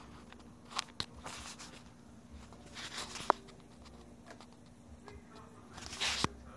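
Handling noise: scattered light clicks and brief rustles, with one sharp click about three seconds in.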